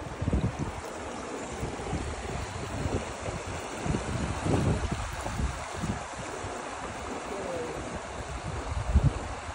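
Shallow water flowing and rippling over rocks and driftwood logs in a steady rush, with wind buffeting the microphone in low gusts, the strongest near the end.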